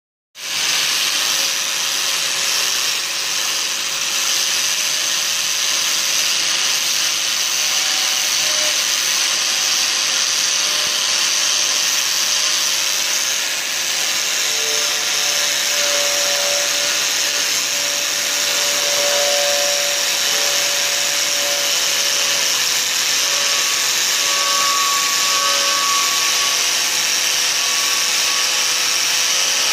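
Hand-held electric angle grinder running steadily with its wheel pressed against a steel post, polishing the metal: a constant motor whine under a dense hiss from the wheel on the steel.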